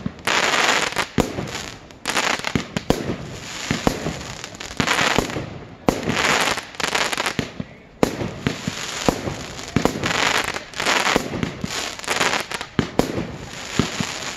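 Fireworks display firing in quick succession: many sharp bangs from launches and bursting shells, with crackling and hissing in between, coming in waves about every two seconds.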